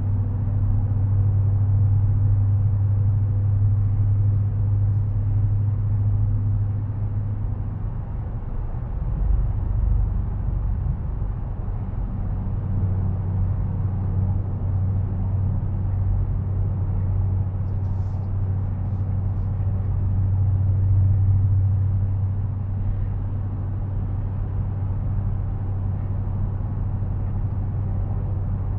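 Dodge Challenger Widebody's V8 engine and tyre noise heard from inside the cabin while cruising at highway speed, a steady low drone.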